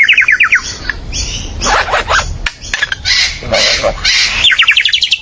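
A bird able to make many different sounds calls loudly in a quick, varied string: a run of about five short falling chirps at the start, then squawks and whistles, then a faster run of about ten short notes near the end.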